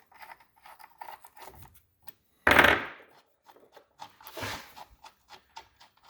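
Hand ratchet clicking in short runs as the bolts on a Powerglide transmission's servo cover are worked loose, with a loud clunk about two and a half seconds in and a scraping rattle about two seconds later.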